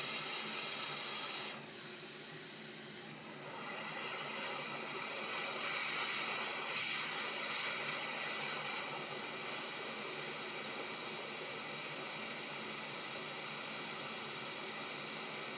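Hot air rework station blowing a steady hiss of air while reflowing a BQ charger chip onto a laptop motherboard. The hiss drops briefly about two seconds in, then grows louder for a few seconds before settling.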